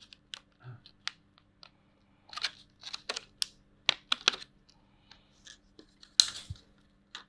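Irregular small clicks, taps and short scrapes of hard plastic and metal laptop parts being handled, with a few louder rustling scrapes, the loudest a little after six seconds in.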